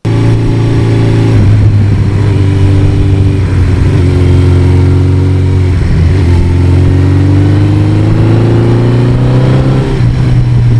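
1982 Suzuki GS1100E's air-cooled inline-four engine running on the road. The note holds steady, breaks briefly about six seconds in, then rises steadily in pitch as the bike accelerates.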